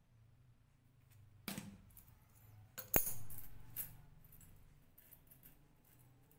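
Small metal chainmail rings clinking and jingling against each other as a patch of riveted mail is handled and rings are closed with pliers. The loudest is a sharp, ringing metal clink about three seconds in, with lighter clinks before and after.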